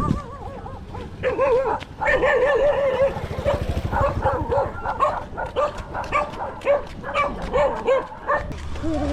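A dog whining and yipping over and over in short, wavering, high-pitched calls.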